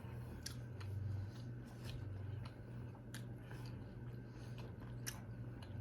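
Quiet eating sounds: faint, scattered mouth clicks and chewing over a low, steady hum.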